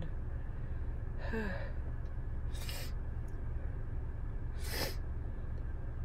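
A woman's sneeze coming on: a short voiced gasp about a second in, then two brief, sharp hissing bursts of breath about two seconds apart, over a steady low hum.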